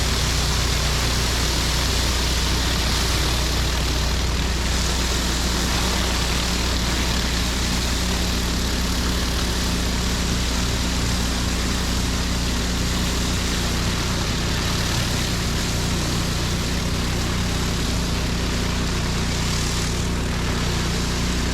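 Pressure washer engines running steadily under the hiss of high-pressure water from a 49-inch spinning surface cleaner working on pavement.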